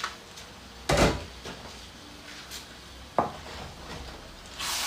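Kitchen clatter of cookware being handled: a loud knock about a second in, a sharper click a little after three seconds, and a short scraping hiss near the end.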